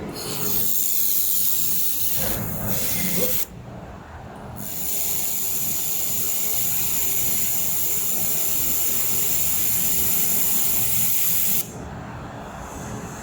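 Handheld air-cooled laser welder firing on aluminium, giving a loud steady hiss. It runs for about three seconds, stops for about a second, then runs again for about seven seconds and cuts off suddenly.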